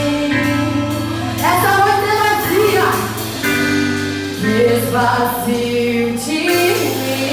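Live gospel worship music: singing over sustained keyboard and bass.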